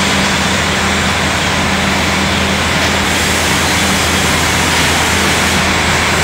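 Ceramic tile production line running: roller conveyors, their motors and blowers making a loud, steady machine noise with a low electrical hum underneath.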